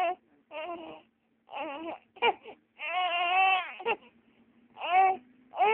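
Three-month-old baby crying: a run of short wails with pauses between them, each rising and falling in pitch, the longest drawn out for about a second from roughly three seconds in.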